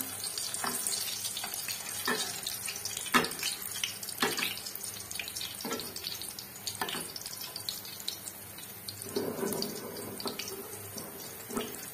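Mughlai paratha deep-frying in hot oil in a pan: a steady sizzle, with sharp knocks of a spatula against the pan every second or so as oil is spooned over it.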